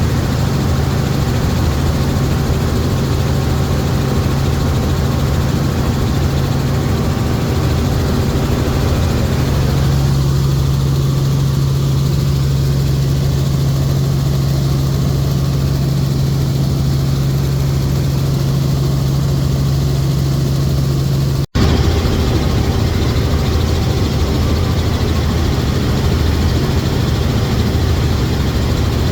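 Helicopter in flight heard on board: a loud, steady engine and rotor drone with a low hum, broken once by a split-second dropout about twenty-one seconds in.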